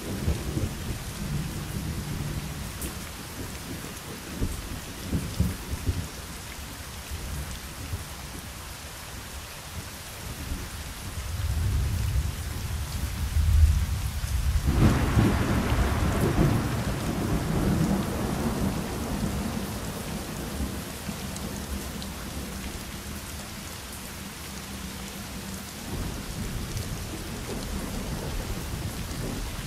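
Thunderstorm: steady rain with low rolling thunder. A rumble builds about halfway through and breaks into a loud thunderclap that rolls away slowly over several seconds.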